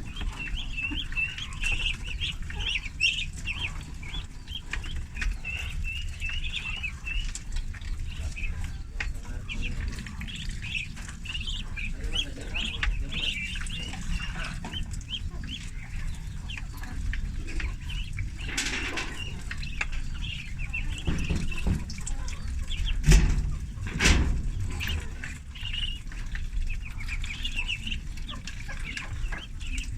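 A brood of ducklings peeping continuously, many short high chirps overlapping. Two sharp knocks about three-quarters of the way through.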